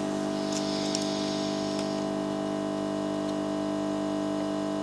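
Steady electrical hum made of several fixed tones, with a few faint small ticks in the first two seconds.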